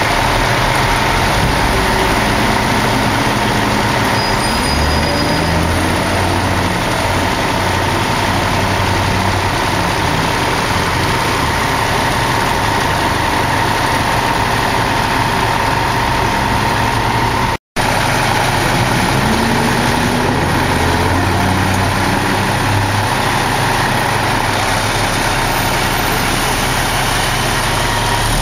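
Diesel engines of fire trucks running close by as the trucks pull away, a loud, steady low engine sound whose pitch rises and shifts a few times as they accelerate.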